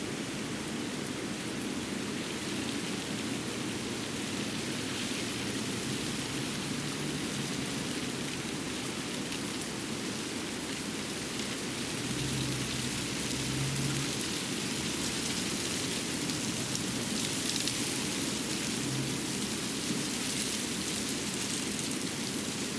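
Winter forest ambience: a steady wash of noise with fine high ticking, getting a little louder about halfway through.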